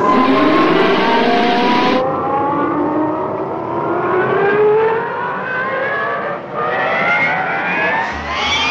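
Cartoon wind-up sound effect: a long mechanical whine that rises steadily in pitch, like a motor revving up, as the robot's arm winds up for a punch. It dips briefly about six and a half seconds in, then keeps climbing.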